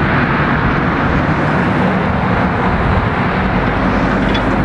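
Road traffic passing close by: lorries and cars going past with a steady mix of engine and tyre noise.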